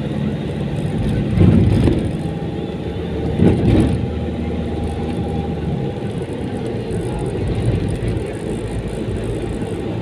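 Steady low hum of a running vehicle engine, with two brief louder swells about one and a half and three and a half seconds in.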